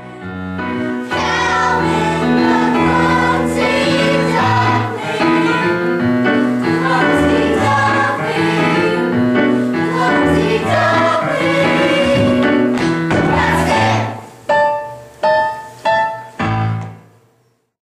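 A song sung by a group of voices over instrumental accompaniment. It ends in four short punctuating chords, about two-thirds of a second apart, and then stops.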